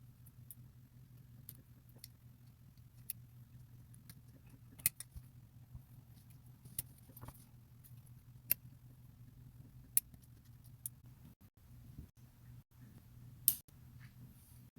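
Sharp metallic clicks and taps of small steel parts and a hand tool as a spring is worked into place in a Mossberg 500 shotgun's trigger group, about ten at irregular intervals, the loudest near the end. A low steady hum runs underneath.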